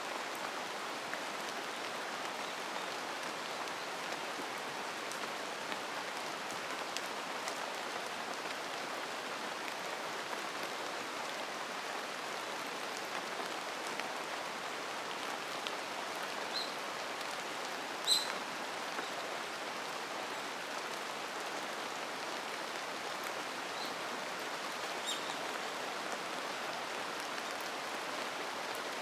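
Steady rain in a mountain forest, an even hiss of falling drops. A few short, high bird chirps come through in the second half, the clearest about two-thirds of the way in.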